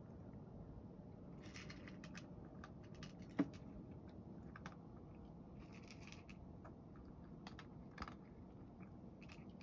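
A cat eating from a bowl, crunching its food in short bouts of crisp clicks, with one louder knock about three and a half seconds in.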